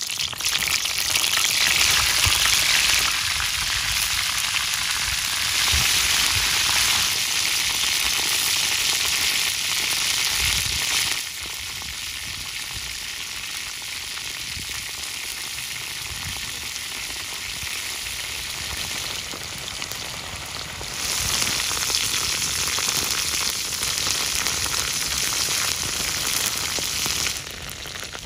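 Rhinoceros beetles deep-frying in hot oil in a pan over a wood fire: a dense, steady sizzle. It is loud at first, drops to a softer sizzle about eleven seconds in, swells again about ten seconds later and drops once more just before the end.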